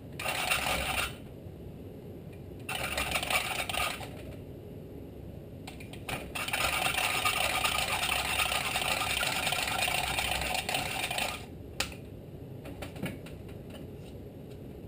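Hand valve lapping on a Tecumseh HSK70 cylinder head: a valve is twisted back and forth on its seat with abrasive lapping compound, making a metal-on-metal scraping, grinding the valve face and seat to a matching seal. It comes in several spells, the longest about five seconds, and stops a few seconds before the end, followed by a few light clicks.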